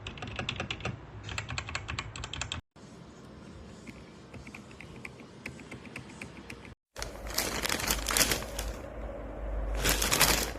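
Typing on a mechanical keyboard fitted with Outemu switches: quick runs of key clicks in short spliced segments, broken by abrupt cuts, with a louder, denser clatter in the second half.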